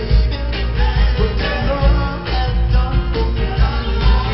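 Live band music with two women singing lead into microphones, over a loud, steady bass.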